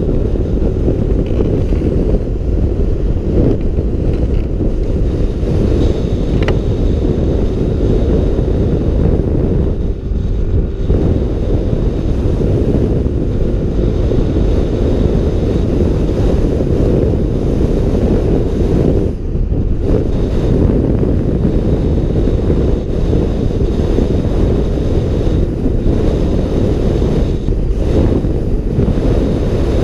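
Steady low roar of wind buffeting a helmet camera's microphone while riding a Yamaha NMAX scooter at road speed.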